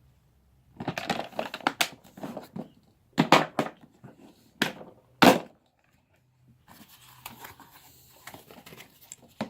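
Handling noise from folding pocket knives being put down and picked up: a run of clicks and rustles, then several louder separate clacks between about three and five seconds in, then quieter rustling.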